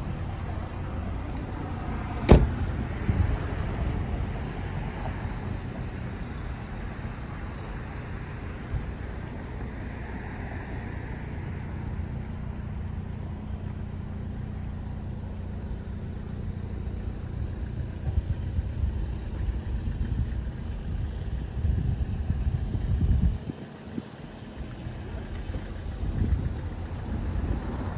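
A car door is slammed shut about two seconds in, with a sharp loud knock, over a steady low outdoor rumble of road traffic and gusting wind.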